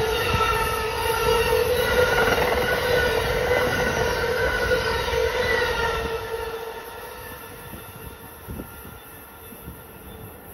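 Amtrak passenger train's Amfleet coaches passing close at speed: steady rumble of wheels on rail with a high ringing from the wheels. The sound falls away sharply about six seconds in as the last car goes by and the train recedes.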